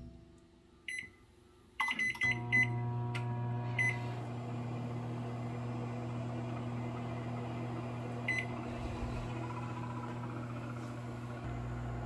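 GE over-the-range microwave oven: a keypad beep about a second in, several quick beeps around two seconds as buttons are pressed, then the oven starts and runs with a steady low hum, with single beeps near four and eight seconds.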